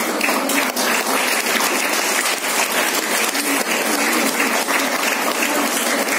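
Audience applauding: dense, steady clapping from a hall full of people.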